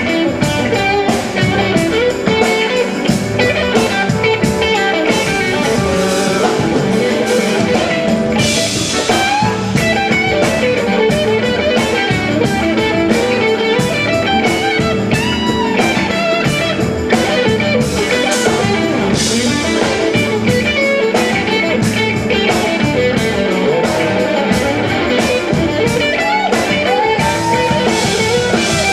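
Live band playing blues-rock: an electric guitar takes the lead over a drum kit keeping a steady beat, with a tambourine.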